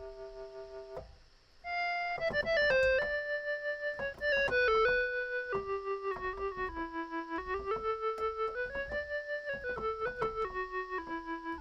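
Technics SX-K200 home keyboard playing a one-note-at-a-time melody on its solo synth preset, with a brief break about a second in before the notes come back louder. Some notes slide and waver in pitch into the next, and the volume pulses steadily throughout.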